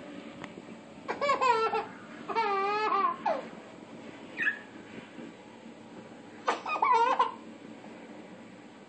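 A toddler laughing in high-pitched, wavering peals: three short bursts about a second in, from about two to three seconds in, and near seven seconds, with a brief squeak between.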